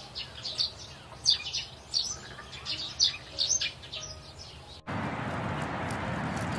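Birds chirping, many short calls in quick succession. About five seconds in it cuts off abruptly and a steady, even rushing noise takes over.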